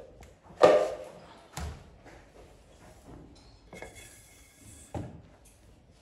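A few knocks and thumps, the loudest a little over half a second in, with a brief higher-pitched sound around four seconds in.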